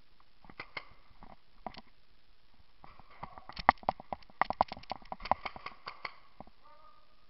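Quick, irregular knocks and clatter of a paintball player running across a dirt floor, sparse at first and densest in the middle.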